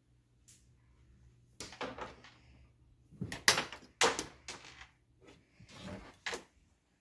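Interior panel door being handled and pushed open: a series of clicks and knocks from the latch and the door, loudest about halfway through.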